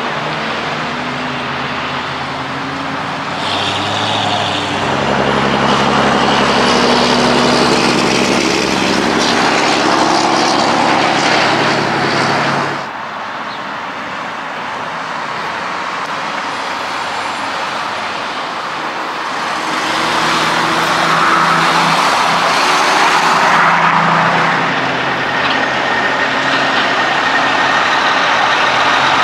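Road traffic passing on a highway, vehicle engines running with tyre noise. The sound builds, cuts off suddenly about thirteen seconds in, and builds again later as a heavy diesel semi truck comes close near the end.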